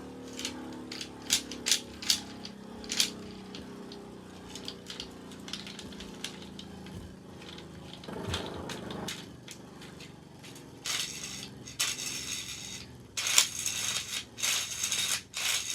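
Plastic Beyblade launcher being worked while jammed: a few sharp clicks early, then from about 11 seconds in, several short whirring, ratcheting rattles as its mechanism is pulled, freeing it.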